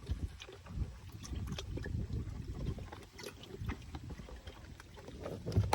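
Faint water sloshing and small splashes with low handling rumble, as a small fish is tipped from a bucket into a pond.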